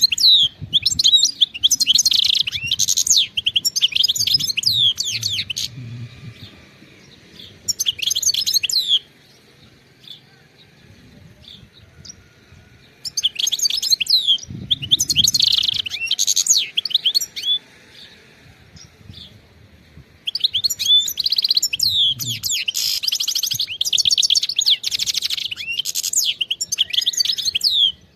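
European goldfinch singing: four bursts of fast, high twittering and trills, separated by pauses of a few seconds.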